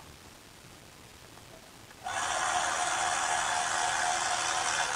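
Cordless electric ratchet running steadily for about three seconds, driving in a bolt on the engine's belt tensioner; it starts about two seconds in.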